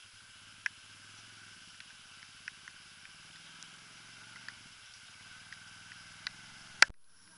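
Quad bike engine idling steadily, with scattered sharp clicks and one loud knock near the end.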